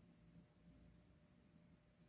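Near silence, with only a faint low background hum.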